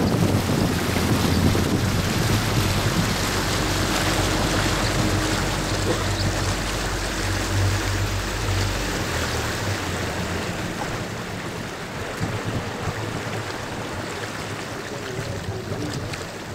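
A tour boat's outboard motor running under way, with water rushing past the hull and wind on the microphone. The engine's low hum drops away about nine seconds in, leaving the quieter rush of water and wind.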